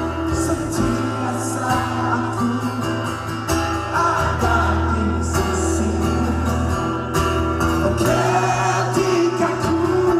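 Live band music: a steady bass line under sustained chords, with singing over it.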